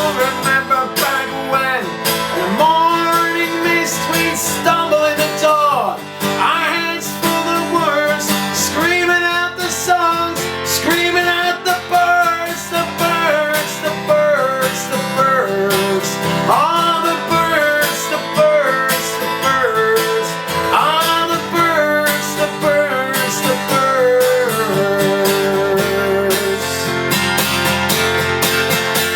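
Acoustic guitar playing a folk song, with a steady run of ringing notes.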